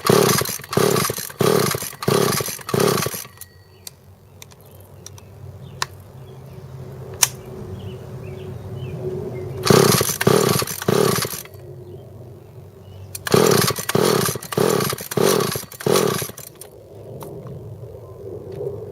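Two-stroke chainsaw being pull-started: three rounds of quick, rhythmic bursts, about two a second, with quiet gaps between, as the engine pops but does not keep running. The carburetor is flooding it with fuel, which the owner suspects is a carburetor fault.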